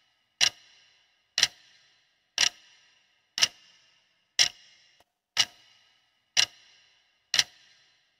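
Clock-tick sound effect ticking once a second, eight evenly spaced ticks with a short metallic ring, counting down the seconds of a quiz countdown timer.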